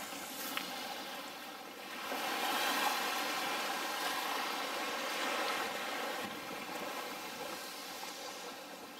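Small waves breaking and washing up a sandy shore, swelling about two seconds in and slowly easing off.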